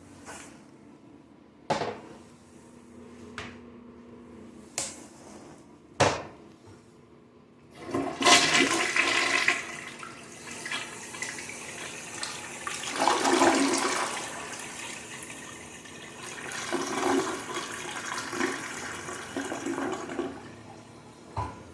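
American Standard Plebe toilet flushing. A few sharp clicks come first, then about eight seconds in the water rushes loudly, swelling again twice more before it dies away.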